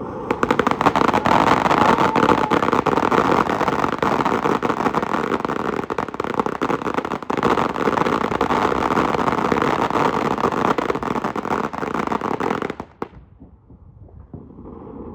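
Fireworks going off in a dense, rapid crackle of small bangs for about thirteen seconds, then cutting off suddenly.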